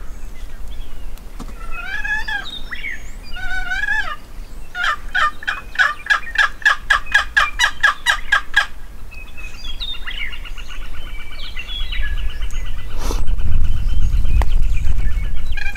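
Wild turkeys calling: two short gobbles about two and three and a half seconds in, then an even run of calls, about five a second, for some four seconds, and later a rapid trill lasting several seconds. Wind rumbles on the microphone near the end, the loudest part.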